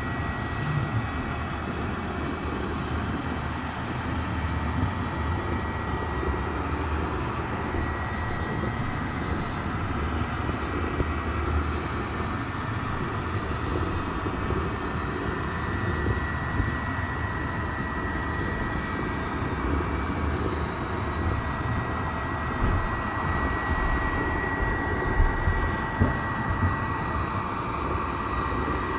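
A train running, a steady rumble with a thin, steady high whine over it and a few light knocks near the end.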